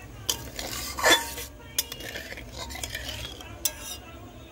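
Metal spatula stirring thin, watery curry masala in a metal kadai, knocking and scraping against the pan a few times. The loudest knock comes about a second in.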